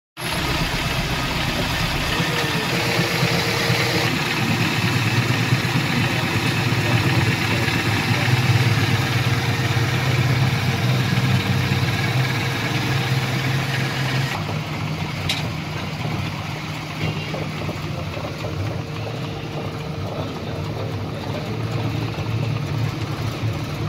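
Toyota 12-valve four-cylinder engine idling steadily.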